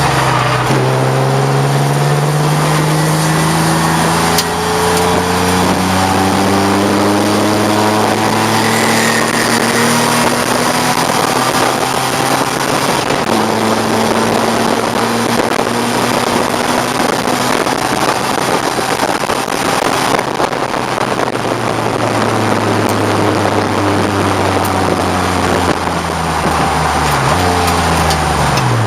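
1989 BMW 535i race car's 3.4-litre straight-six engine at racing speed under heavy wind and road noise. Its pitch drops just at the start, climbs slowly through one gear for about twelve seconds and then holds steady. Near the end it falls and rises sharply a few times as it downshifts with blips.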